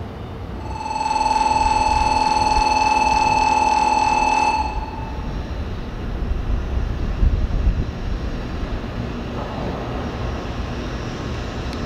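A steady beep-like tone held for about four seconds, over low rumbling noise that carries on after the tone stops.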